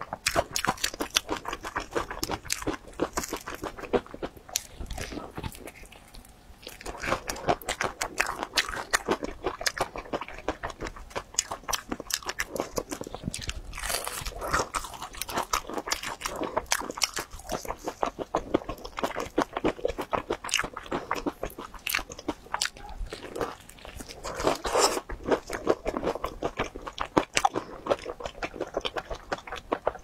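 Close-miked biting and chewing of a crispy breaded fried chicken cutlet coated in chili sauce: dense, rapid crunching of the crust in repeated bouts.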